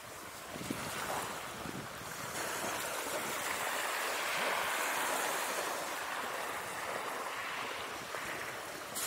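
Ocean surf washing in, a steady rushing noise.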